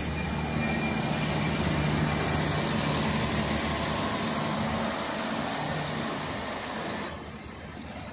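MAN diesel railcar train running close past, its diesel engine running under a steady rush of wheel and track noise. The sound drops noticeably about seven seconds in.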